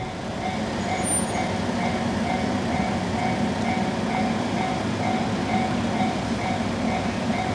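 Japanese level crossing warning bell ringing a repeated ding about twice a second, over the steady rushing running noise of a 117 series electric train.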